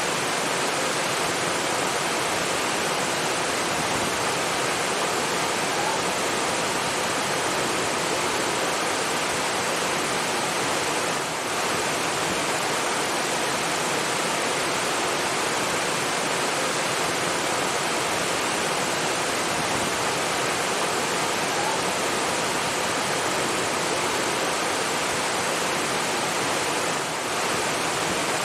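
Rushing water, a waterfall or fast stream, running in a steady, even rush, with two very brief dips in level.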